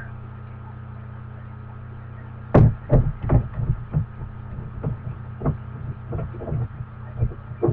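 Steady low electrical hum, then from about two and a half seconds in a run of irregular knocks and clicks as glass nail polish bottles are picked up, opened and set down on the table, the first few the loudest.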